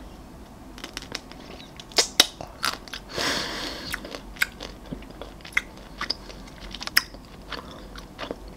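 Close-miked biting and chewing of a chocolate-coated Helados Mexico ice-cream bar: crisp cracks of the chocolate coating about two seconds in, a longer crunch just after three seconds, then scattered smaller crunches and mouth clicks as it is chewed.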